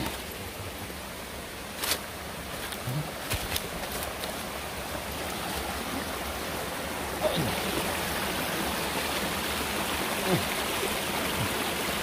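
Steady rush of flowing stream water, growing louder about seven seconds in, with a few sharp snaps in the first few seconds.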